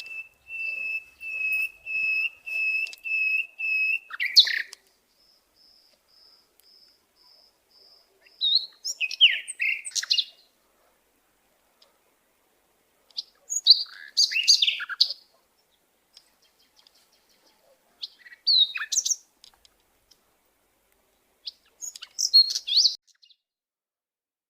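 Birds chirping: first a run of about eight steady whistled notes, about two a second. Then, after a pause, short bursts of varied chirps every few seconds.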